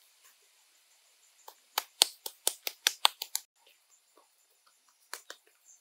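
Hands slapping and patting wet mud onto a frame of sticks: a quick run of sharp slaps, about five a second, in the middle, then two more near the end.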